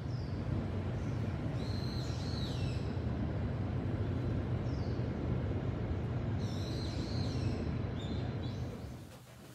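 Birds giving short, high, falling calls every second or two over a steady low hum of city traffic; the sound fades near the end.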